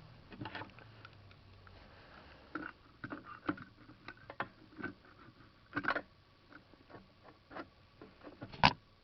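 Irregular small clicks, taps and knocks of hand tools and metal engine parts being handled, with one sharper knock near the end.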